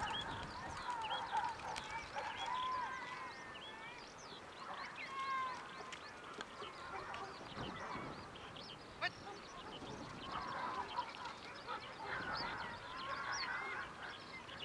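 Many wild birds calling at once, short chirps and whistles overlapping throughout, with a single sharp click about nine seconds in.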